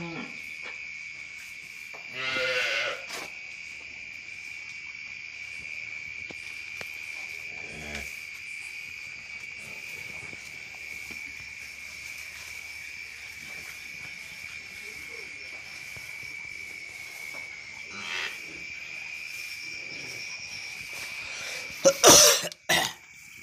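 Steady high chirring of crickets throughout, with a short bleating call from the newborn calf about two and a half seconds in. A loud burst of noise comes near the end.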